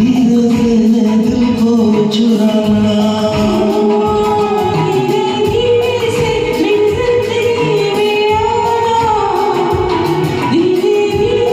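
Hindi film song with backing music and a sustained, gliding sung melody line, no clear words.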